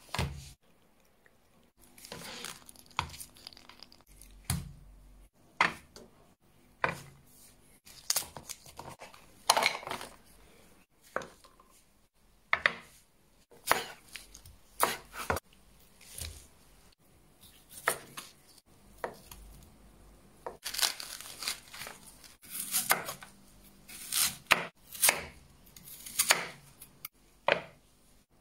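Kitchen knife cutting food on a plastic cutting board: a string of sharp, separate knocks, about one a second, with quiet between.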